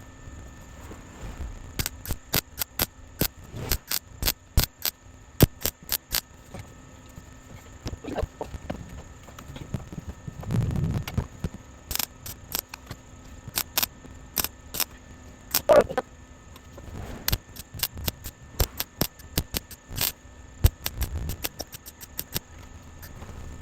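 Irregular sharp metallic clicks and knocks from hands-on sheet-metal work on a car body, with a brief low rumble about ten seconds in and a short squeak near sixteen seconds.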